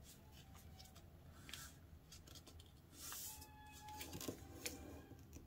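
Faint rustling and soft crinkling of a sheet of paper being folded and pressed flat by hand, with a few light ticks and a brief swish about three seconds in.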